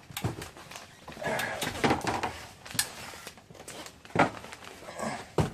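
A few sharp, irregularly spaced snaps and knocks of a staple gun tacking material up overhead, with handling rustle in between.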